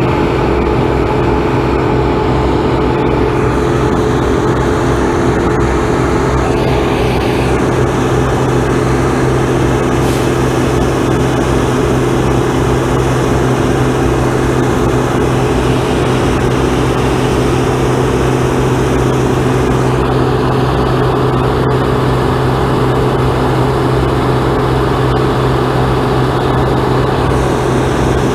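Combine harvester running steadily at work, a loud, even engine hum with no change in speed.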